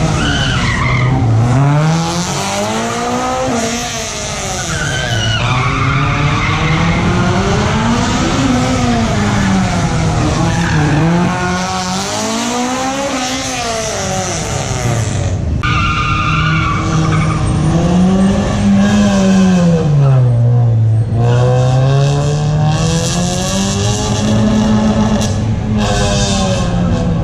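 A car's engine revving up and easing off again and again as it is driven hard through a cone slalom, its pitch rising and falling every few seconds, with tyres scrubbing and squealing through the turns.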